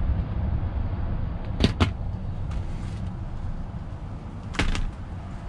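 Steady low rumble inside a vehicle cab, with two sharp knocks close together about a second and a half in and another brief pair of knocks near the end.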